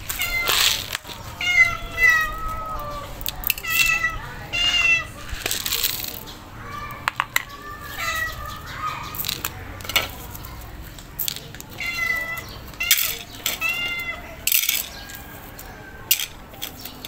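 Calico cat meowing again and again, short calls that bend in pitch, which the feeder takes as a sign it is hungry. Sharp clicks come between the calls.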